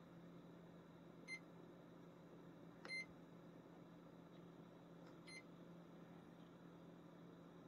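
Lowrance Hook2 fish finder's keypad beeping: three short, high beeps about two seconds apart as its buttons are pressed, the middle one with a button click, over a faint steady low hum.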